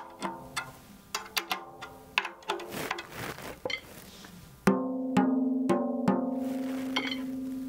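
Tom-tom head being tapped lightly at several points during tuning, each tap giving a short pitched ring, to check that the tension is even at each tension rod. About four and a half seconds in, a firmer stick stroke sets the tom ringing with a steady tone that slowly fades, with a few more light taps over it.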